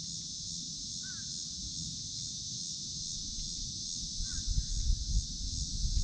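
A steady high-pitched insect chorus drones throughout, with two short bird calls, about a second in and about four seconds in. Low rumbling thumps come in near the end.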